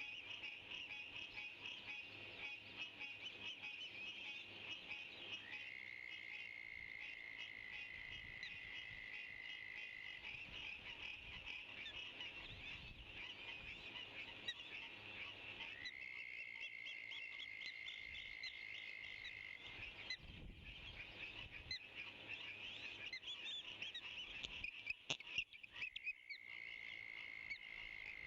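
A dense chorus of frogs and insects. A steady high trill switches on and off, running about four seconds each time, over a fast pulsing background. A few sharp knocks near the end.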